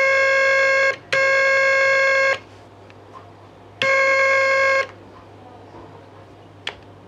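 Homemade simple electronic tone generator sounding a steady, buzzy, mid-pitched tone in three bursts at the same pitch as it is switched on and off through the keyboard's switch array. A single sharp click near the end.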